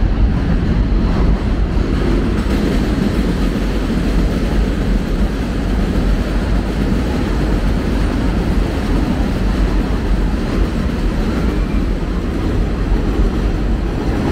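Elevated subway train on the 7 line running over the steel el structure overhead: a loud, steady, mostly low-pitched noise throughout.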